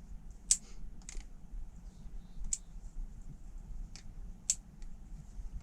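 Squid Industries Squiddy balisong being handled or flipped, its handles clicking sharply about five times at uneven intervals.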